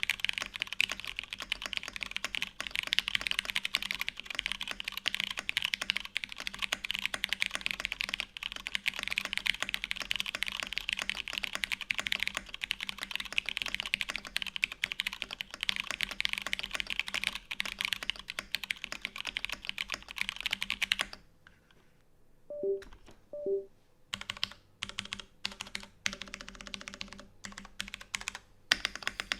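Typing on a custom mechanical keyboard with an SBL case, a UHMWPE plate and oil-lubed Cherry MX Brown switches: fast, continuous keystrokes. About two-thirds of the way through the typing stops. Two short tones sound, then single keystrokes come back and build up to typing again.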